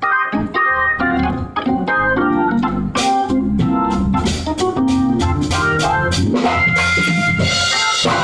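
Gospel organ playing full, changing chords, with sharp percussion hits joining in about three seconds in.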